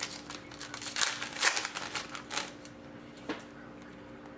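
Foil trading-card packs crinkling and cards flicking against each other as they are handled: a quick run of rustles over the first two and a half seconds, then a single tick about three seconds in.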